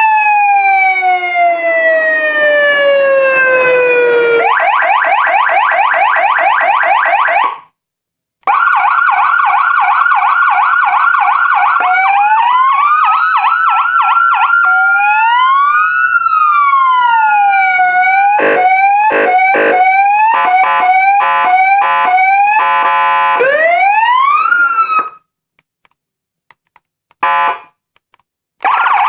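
Federal Signal ASH8B 400-watt electronic siren cycling through its tone modes: a long falling wail, a fast yelp, a rapid warble, slow rising and falling wails, and short hard pulsed blasts. It cuts out briefly between modes, falls silent for a few seconds near the end with one short burst, then starts a fast warble again.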